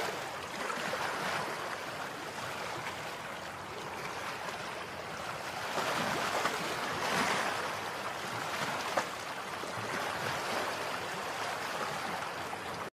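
Steady outdoor rushing noise with no voices, swelling a little about six and seven seconds in, with a small click about nine seconds in.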